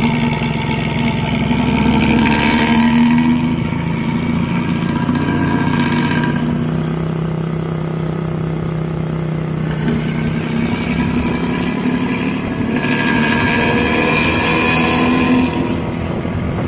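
Diesel engine of an intercity bus moving off, running with the deep 'knalpot ngorok' (snoring) note of its modified exhaust. Louder stretches about two seconds in and again near the end.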